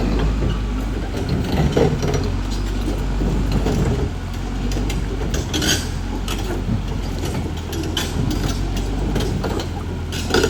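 Caterpillar D6R XL bulldozer's diesel engine running steadily under load, with irregular metallic clanks and knocks from its moving tracks.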